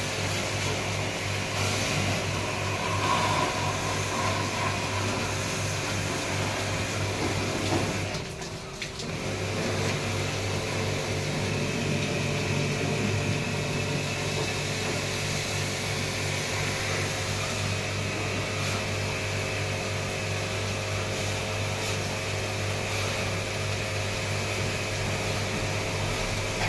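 Steady motor-driven machine hum with constant tones, dipping briefly about eight seconds in.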